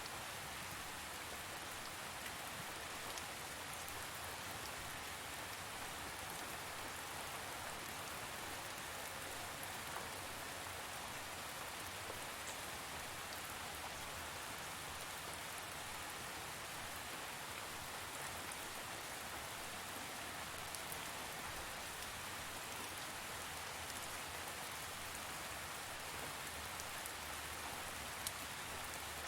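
Steady rain falling on a surface, an even patter with occasional sharper drop ticks.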